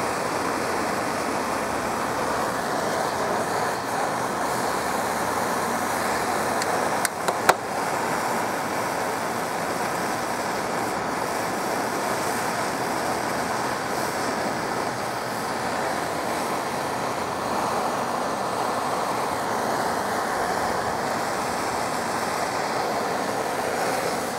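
Propane torch flame hissing steadily while heating an aluminum hull to melt aluminum brazing rod into pinholes. Three sharp clicks about seven seconds in.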